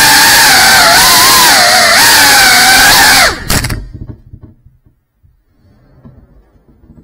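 GEPRC CineLog35 cinewhoop's brushless motors and propellers whining, the pitch wavering with throttle. About three seconds in the whine winds down and stops with a short clatter as the drone comes to rest. Faint small knocks follow.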